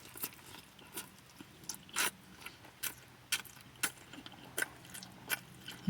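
Close-up chewing of a grinder sandwich: irregular mouth clicks and smacks, about two a second, over a faint steady hum.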